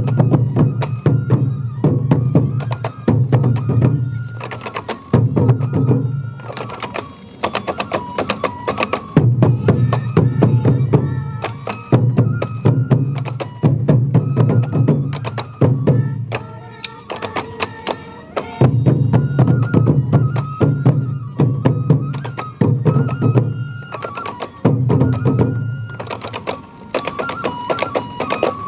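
Sansa odori festival music: dense, rapid taiko drumbeats with a high bamboo-flute melody over them.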